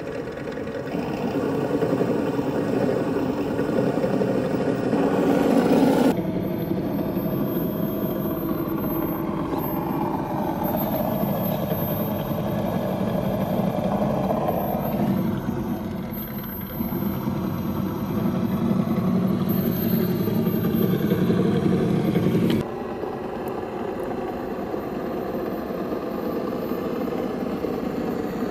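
Traxxas TRX-4 Mercedes G500 RC crawler's electric motor and geared drivetrain whining while it crawls over rock, the pitch rising and falling with the throttle. The sound changes abruptly about six seconds in and again near the end.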